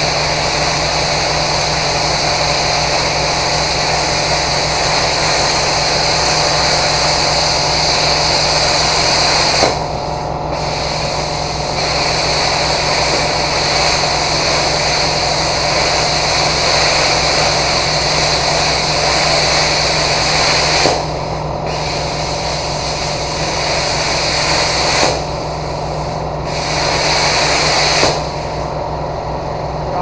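Handheld plasma cutter hissing as it cuts the nuts off the bolts of a skid steer bucket's cutting edge, over a steady low hum. The cut breaks off briefly three times and stops near the end.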